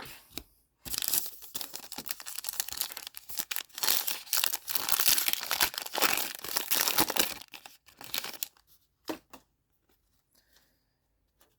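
A trading card pack wrapper being torn open and crinkled for about seven seconds, followed by a few light clicks as the cards are handled.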